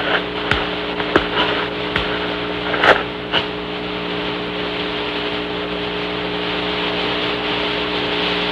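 Open air-to-ground radio channel hissing with a steady low hum, with several sharp clicks in the first few seconds.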